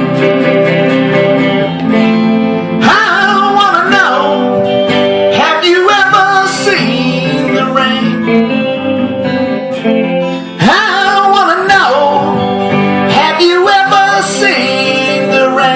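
A song: strummed guitar chords with a sung vocal line coming in and out.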